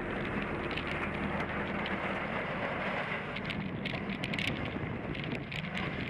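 Wind noise on a bicycle-mounted camera's microphone, with road noise from the bike rolling over asphalt. A faint hum fades out in the first two seconds, and light crackling ticks come through in the second half.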